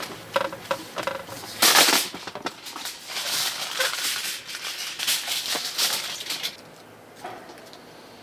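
Rustling and light clattering of things being handled, with a louder rustle about two seconds in; it dies down after about six and a half seconds.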